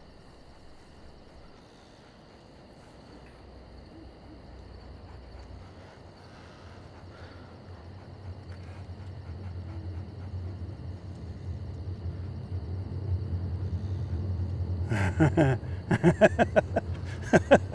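A low steady hum that swells slowly louder, then a man's short bursts of laughter in the last few seconds.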